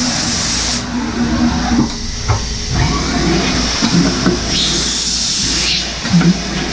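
Datron M8Cube CNC mill during an automatic tool change, with its spindle stopped. Two bursts of compressed-air hiss, one at the start and one about four and a half seconds in, over the whir and knocks of the machine moving at the tool magazine.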